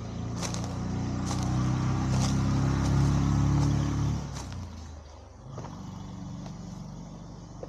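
A motor vehicle passes on the road, its engine growing louder and then falling away about four seconds in.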